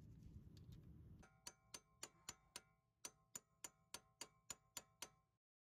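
A hammer striking the base of a manual impact driver about four times a second, each blow a sharp metallic clink with a brief ring, driving out a brake rotor's seized retaining screw. The blows start about a second in, after a low rumble, and stop abruptly near the end.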